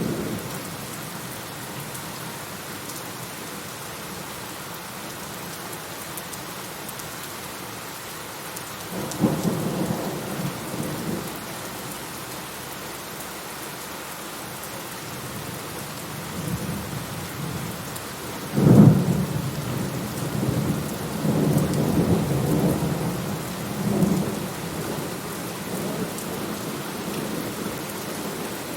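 Steady rain falling, with thunder: a rumble about nine seconds in, then a sharper, louder clap about halfway through that rolls on in several rumbles for some seconds.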